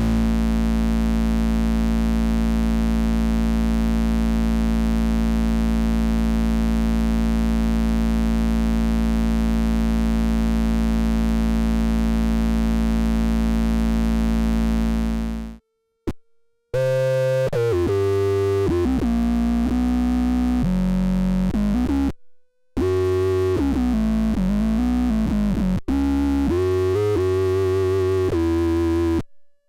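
Square-wave tone from a CD4013 flip-flop octave divider. For about 15 seconds it holds steady at one pitch, two octaves below a sine-wave input. After a brief dropout it follows a triangle wave from a guitar tracker synthesizer and steps through a run of changing notes, with short gaps between phrases.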